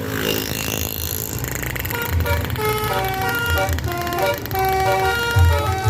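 A bus's Basuri telolet horn, a multi-tone musical air horn, plays a quick tune of held notes stepping up and down, starting about two seconds in after a hiss. The low running rumble of the bus's diesel engine lies under it throughout.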